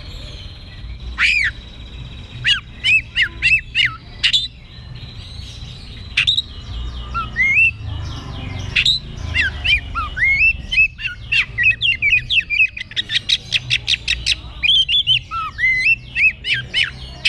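Oriental magpie-robin (kacer) singing loudly and freely, a long varied song of quick whistled and chirping notes that sweep up and down in pitch, in several runs with short pauses between them.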